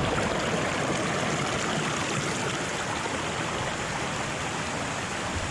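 Steady rush of falling and flowing water from a waterfall.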